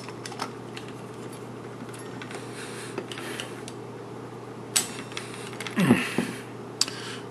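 Light metallic clicks and taps of an angle grinder's pin spanner working the flange nut that holds a circular saw blade, with two sharper clicks in the second half. A steady hum sits in the background; the grinder is not running.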